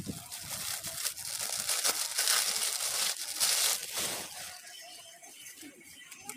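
Clear plastic bags around packaged clothes crinkling and rustling as they are handled. Loudest in the middle, then fading over the last couple of seconds.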